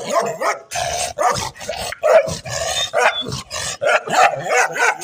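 Dog barking in a rapid string of loud barks, a few a second.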